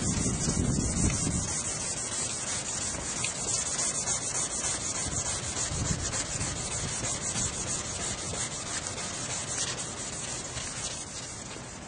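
Sanding of a cloudy, scored plastic headlight lens: a steady rasping rub that eases off slightly toward the end.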